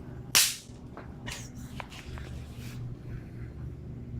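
A bang snap (snap pop) cracks sharply about a third of a second in as it is run over on the ground, followed by a few much fainter clicks.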